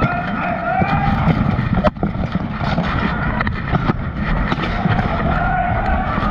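Steady muffled rumble and clatter from a camera worn by a fighter in plate armour during a bout, with voices shouting over it and a sharp knock about two seconds in.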